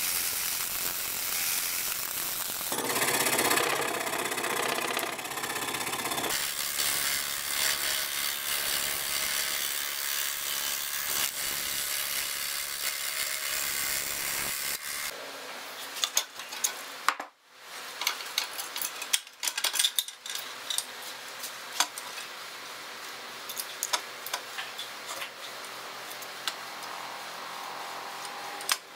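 Scroll saw running, its fine reciprocating blade cutting fretwork through a wooden board along a paper pattern, louder for a few seconds early on. About halfway through the saw noise stops abruptly and scattered light clicks and taps follow.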